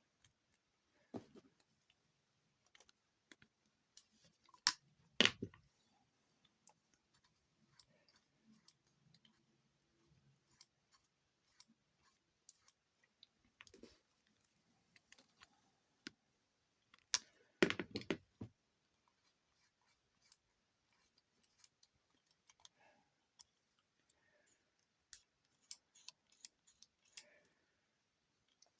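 Scattered light clicks and metallic clinks of small parts being handled on a workbench, with louder knocks about five seconds in and again around eighteen seconds; no motor running.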